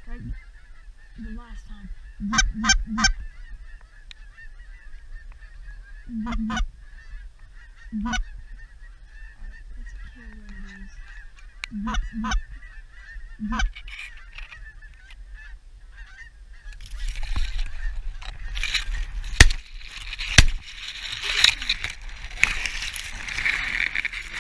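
Geese honking: short honks in ones to threes, spaced several seconds apart, then from about two-thirds of the way in a large flock honking all at once, loud and continuous, as it comes in over the blind.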